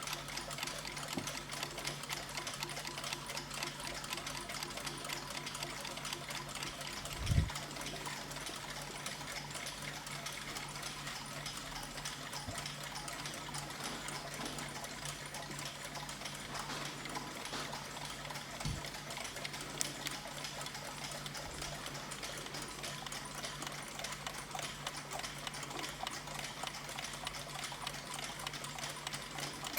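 Several mechanical clocks ticking at once, their ticks overlapping into a dense, even patter over a steady low hum. A low thump about seven seconds in, and a fainter one later.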